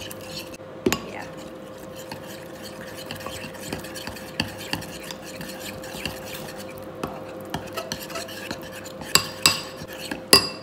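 Metal spoon stirring a thick sauce in a ceramic bowl: continual scraping and clinking against the bowl, with a few sharper clinks about a second in and near the end.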